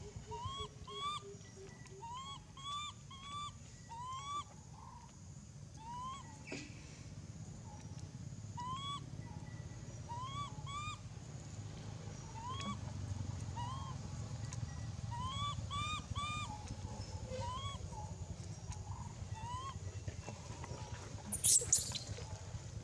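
A baby long-tailed macaque gives short, rising coo calls over and over, singly or in quick pairs, then lets out a loud scream about a second before the end as an adult grabs it by the tail.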